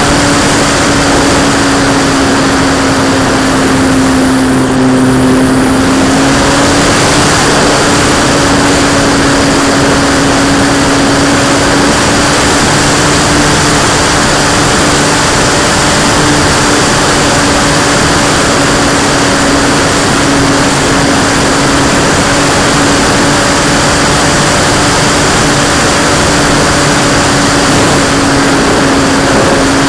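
Model P-51 Mustang's motor and propeller heard from a camera on the aircraft: a steady droning tone that dips slightly in pitch about four to six seconds in and then comes back up, under a constant rush of wind.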